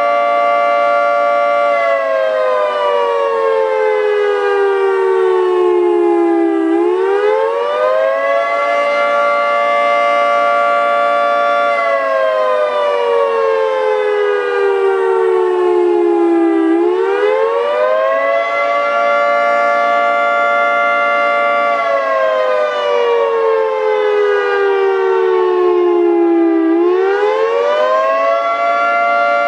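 Federal Signal 3T22 three-tone siren sounding its attack signal in a test: its chord holds steady for a few seconds, slides down slowly for about five seconds, then winds quickly back up, three times over.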